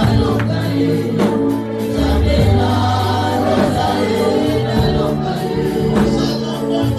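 Gospel music with a choir singing over a held bass line and drum beats.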